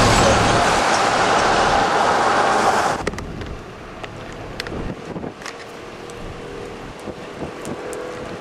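Loud, steady rushing noise of storm wind and a passing vehicle for about three seconds. Then a sudden cut to quieter gusting wind with scattered light ticks.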